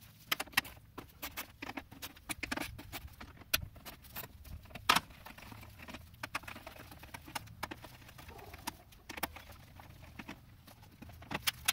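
Irregular light metallic clicks and taps, a few louder than the rest: a Torx socket wrench backing out the bolts that hold a car's front bumper to the frame, with the loose bolts being handled.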